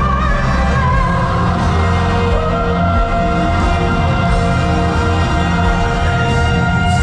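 Music: long held notes over a steady low bass, loud and even.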